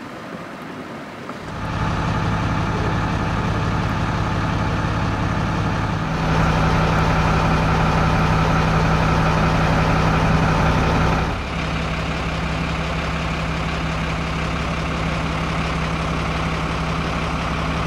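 A fire engine's engine idling steadily with a low hum. It comes in about two seconds in and jumps louder for about five seconds in the middle before dropping back.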